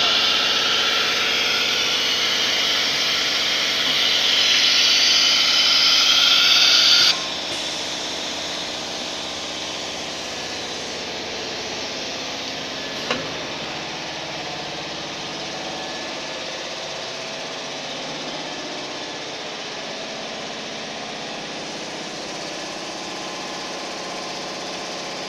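OMNI 2040ATC CNC router running: a loud high hiss for about the first seven seconds that cuts off suddenly, then a steadier machine hum with many tones, broken by a single sharp click about thirteen seconds in.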